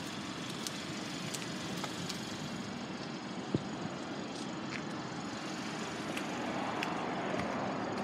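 Steady outdoor background noise, a vehicle-like hum with no clear engine note, growing slightly louder near the end, with a faint click about three and a half seconds in.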